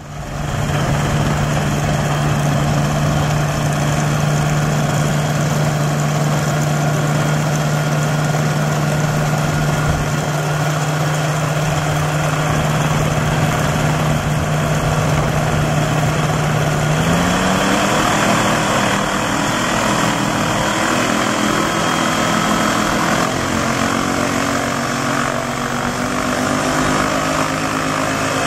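Kolb ultralight aircraft's engine and propeller idling steadily, then revving up about two-thirds of the way through and running at varying throttle as the plane taxis on grass.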